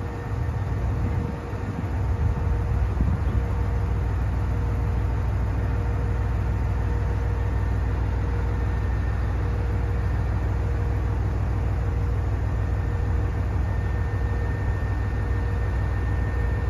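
KiHa 122 series diesel railcar idling at the platform: a steady low engine rumble with faint steady hums above it.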